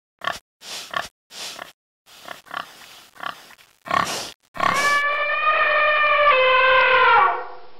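Wild boar grunt sound effects: a string of short, sharp grunts over the first five seconds. Then a long horn-like tone is held steady and falls away near the end.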